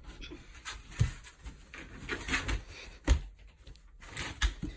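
Shuffling and rustling as a person grapples to hoist a large Great Pyrenees off the floor, with three dull thumps about a second, three seconds and four and a half seconds in, the middle one the loudest.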